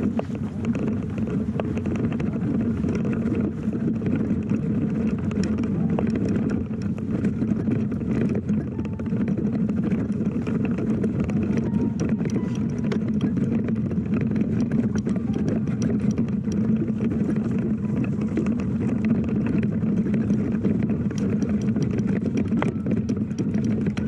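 Fat bike moving along a dirt trail: a steady rumble of the wide tyres, with many small clicks and ticks.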